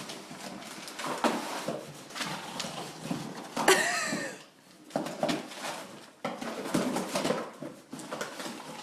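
Wrapping paper rustling and tearing in short crackly strokes as a dog works at a present, with a brief voice-like sound about four seconds in.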